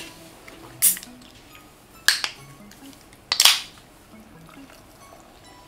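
Aluminium drink can being opened by its pull tab: a few sharp clicks and cracks, the last and loudest about three and a half seconds in with a short fizzing hiss as the can vents. Faint background music underneath.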